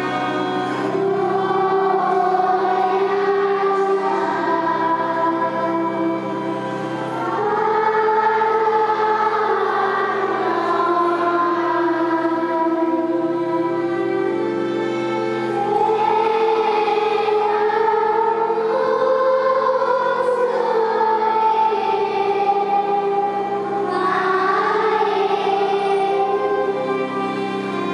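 Choir singing a slow hymn in long, held notes with a low sustained accompaniment.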